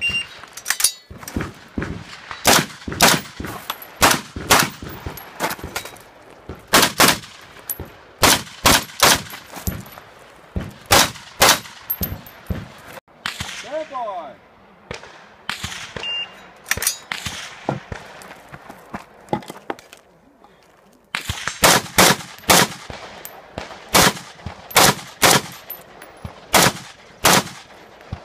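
Semi-automatic rifle firing rapid strings of shots in IPSC competition, roughly one to two shots a second. The firing stops for a second or two about two-thirds of the way through, then another quick string follows.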